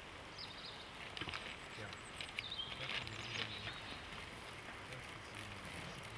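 Faint outdoor ambience: paper rustling and handling noises as a paper sample bag is handled and labelled, with a few short high chirps about half a second in and again a little after two seconds.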